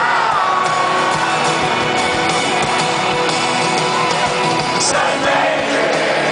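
Large stadium crowd singing together loudly, with shouts and whoops among it.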